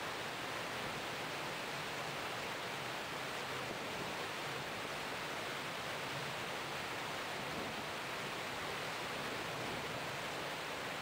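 Steady, even rushing noise of water streaming past the hull of a moving boat.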